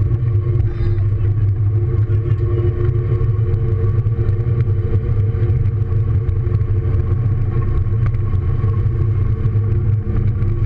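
A car's engine and tyre noise heard from inside the cabin at a steady speed: a constant low drone with no revving up or down.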